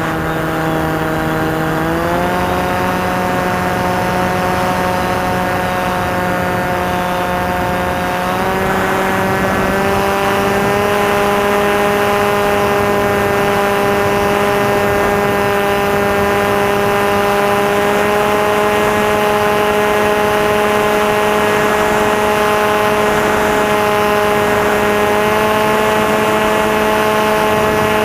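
Electric motor and propeller of a Maxi Swift RC flying wing running in flight, a steady whine with many harmonics. Its pitch steps up about two seconds in and again about eight seconds in, then holds steady at the higher speed.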